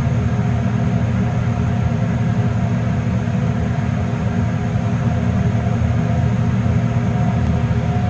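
Elevator car travelling upward, giving a steady rumble and hum with a few faint steady tones above it.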